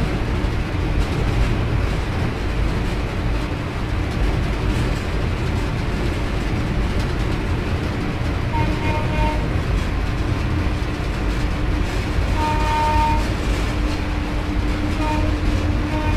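Cab noise of a WAP-4 electric locomotive running under power: a steady, loud rumble. Short high tones sound three times in the second half, and a steady hum joins the rumble near the end.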